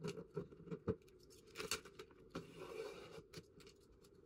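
Faint rustling and small clicks of vinyl wrap being handled on a headlight, a few sharper ticks among them.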